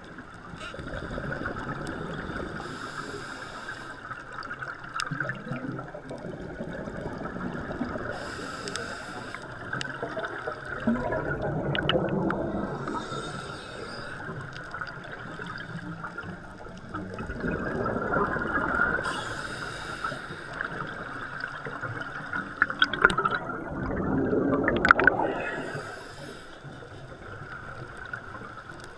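Scuba diver breathing through a regulator underwater: a short hiss on each inhale, then a louder bubbling rumble on each exhale, about every five to six seconds, over a steady faint hum.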